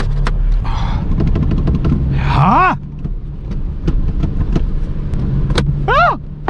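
Small Fiat city car's engine and road noise, heard inside the cabin while driving: a steady low hum with scattered sharp clicks. A short pitched sound rises and falls about two and a half seconds in, and a few more come near the end.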